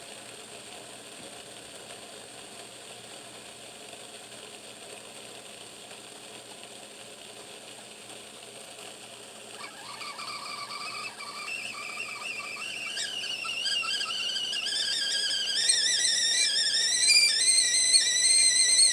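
Mainstays 1.8-liter stainless steel whistling tea kettle heating up, with a faint hiss from the water for about half the time. Then the whistle starts, wavering and rising in pitch as it gets steadily louder: the water is coming to the boil.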